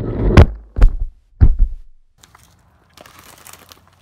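A mini FPV quadcopter crashing through pine branches: three hard knocks and a rough clattering over about a second and a half as it tumbles, then the sound cuts off suddenly. Faint rustling follows.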